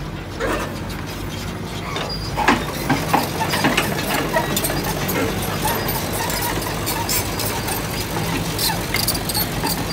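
Hydraulic excavator's diesel engine running steadily as the machine swings. From about two and a half seconds in, many sharp metallic clicks and clanks are heard over it.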